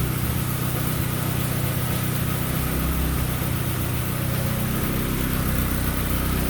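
1997 Mazda Miata's 1.8-litre four-cylinder engine, freshly fitted with an MK turbo kit, idling steadily on its first run after the install.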